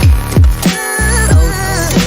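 Loud electronic background music with a heavy beat of booming kick drums and synth notes, and a brief drop in the bass about a second in.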